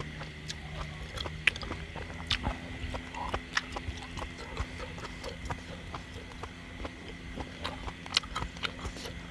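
Eating sounds: irregular wet smacks and clicks of open-mouthed chewing, with chopsticks tapping against a clay hot-pot and a bowl. A faint steady high tone runs underneath.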